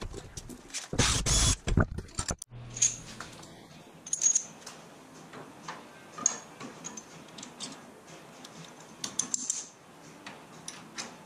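Loud clattering and rustling of tools being rummaged on a cluttered workbench, then scattered light metallic clicks and clinks as a rubber suspension bushing and its parts are handled and fitted into the end of a Panhard bar.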